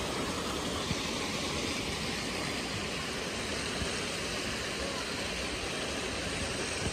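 Steady rush of river water pouring over rock in rapids and a small cascade, an even hiss-like noise with no change in level.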